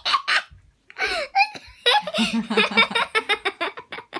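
A woman laughing, with a quick, even run of short laughs in the second half.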